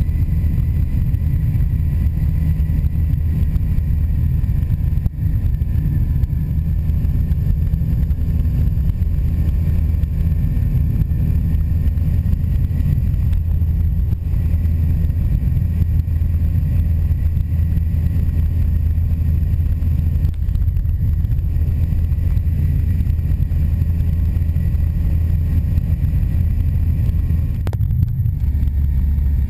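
Engine and propeller of a Kiebitz light biplane droning steadily in cruising flight, heard from on board with wind rushing over the microphone. The drone drops to a lower pitch near the end.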